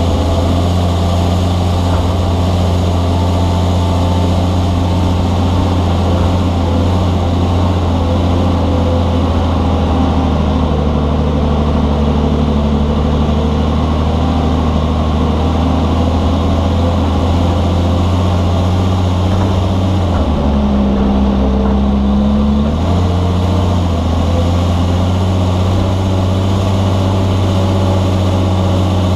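Articulated dump truck's diesel engine running steadily with a deep, even drone as the truck travels empty. The engine note shifts for a few seconds about twenty seconds in, then settles back.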